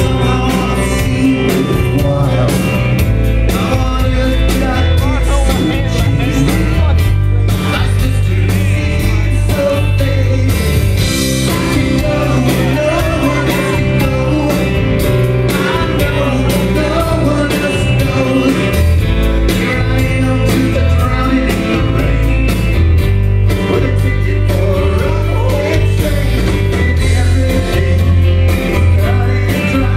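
Live rock band playing with electric and acoustic guitars, bass guitar and drum kit, with a lead vocal singing over the band.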